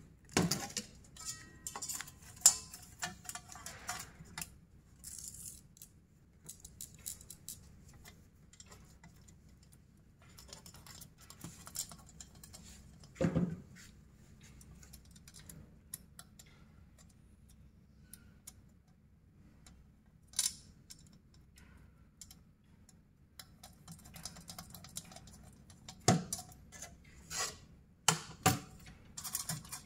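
Small hardware and tools being handled: irregular clicks, taps and light knocks, with a louder knock a little under halfway and a cluster of sharp ones near the end.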